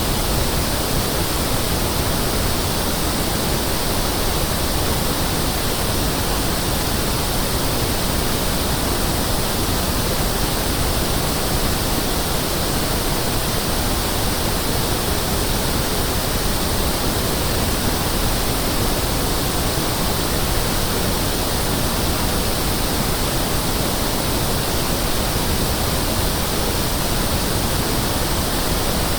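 Pink noise (1/f noise) test signal: a steady, even hiss with no pitch or rhythm, unchanging throughout.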